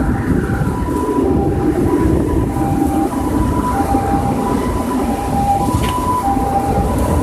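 Storm wind roaring over the microphone during a typhoon, with a two-tone emergency-vehicle siren alternating steadily between a high and a low note, each held about half a second.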